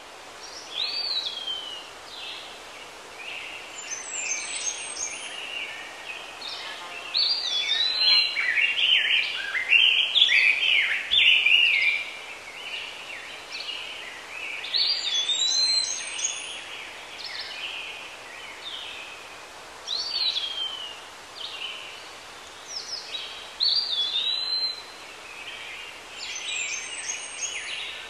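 Songbirds singing: a run of high chirps and short whistled phrases, with a rising-then-falling whistle repeating every several seconds and a busier burst of chirping for a few seconds in the middle.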